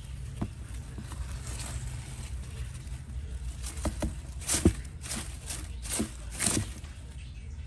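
Baby Brazilian short-tailed opossums scurrying through loose wood-shaving bedding: a few scattered light rustles, then a run of louder crackly rustles from about three and a half seconds in until shortly before the end, over a steady low hum.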